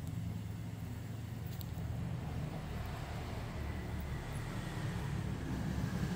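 Welding torch at work on a steel exhaust pipe, a steady low buzzing hum with a hiss over it.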